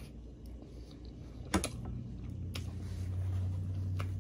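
Three sharp clicks and cracks from boiled crawfish being handled and eaten, about a second apart. A low steady hum comes in about a second and a half in.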